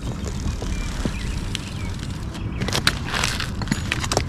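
A muddy plastic toy bicycle being washed by hand in a basin of water: splashing water with knocks and clicks of plastic, busier in the second half, over a steady low rumble.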